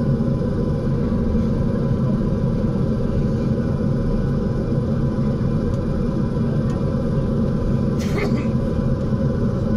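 Saab 340's General Electric CT7 turboprop engine running steadily, heard from inside the cabin beside the nacelle: a dense, steady low drone with a faint steady whine above it. There is a brief click about eight seconds in.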